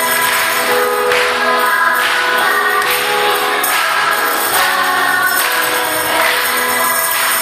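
Choral worship song playing, with tambourines jingling in time, a shake about once a second.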